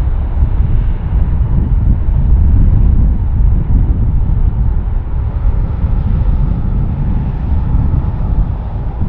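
Boeing 767's twin jet engines at takeoff thrust as it climbs away after liftoff: a loud, deep, steady rumble.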